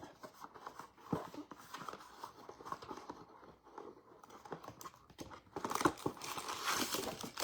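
Plastic wrapping crinkling and rustling as a sealed box of trading-card packs is opened and emptied. The crinkling is light and scattered at first and gets busier near the end.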